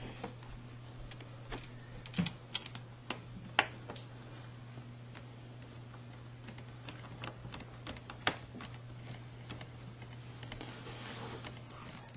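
Small sharp clicks and taps of tweezers, tiny screws and a screwdriver against a laptop's plastic screen bezel as the bezel screws are started. The clicks come in a cluster a couple of seconds in and once more, louder, near the end, over a faint steady low hum.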